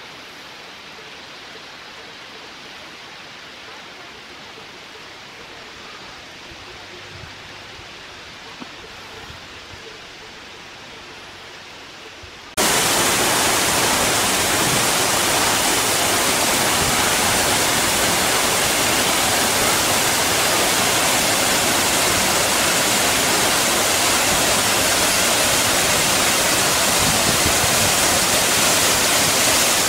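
A faint, steady rushing hiss; about twelve seconds in it gives way abruptly to the loud, steady rush of a waterfall pouring into a rock pool.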